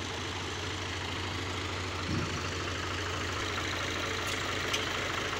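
Farm tractor's diesel engine idling steadily with an even low pulse, while it backs up to hitch a fertilizer spreader. A low thump comes about two seconds in, and a couple of light clicks near the end.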